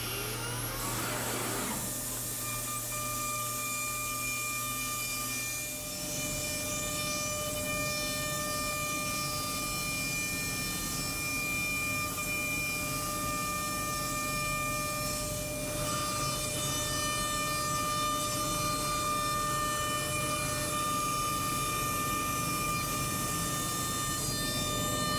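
ShopSaber CNC router spindle, set to 18,000 rpm, running with a steady high whine as the bit cuts the outside profile through a plywood panel, over a constant rushing noise. A rising whine in the first two seconds, as the spindle comes up to speed, gives way to the steady cutting sound.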